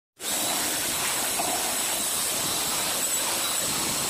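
Steady hiss of a water spray jet, cutting in abruptly just after the start, with a faint high whine over it.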